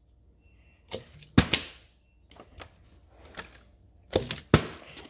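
Partly filled plastic water bottle being flipped and hitting a rubber mat. There are two sets of sharp thuds about three seconds apart, each a quick double knock as the bottle lands and bounces or tips. Fainter handling noises come in between.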